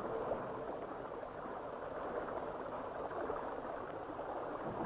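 Steady, even wash of river water around a moored pontoon, with no distinct splashes or clicks.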